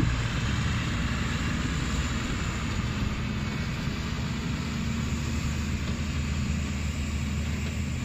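Heavy diesel engine running steadily, a low, even hum with a hiss of noise above it.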